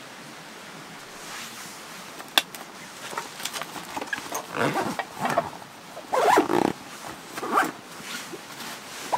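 Zipper on a padded carry bag worked in several quick rasping strokes, with fabric rustling and a sharp click a little over two seconds in.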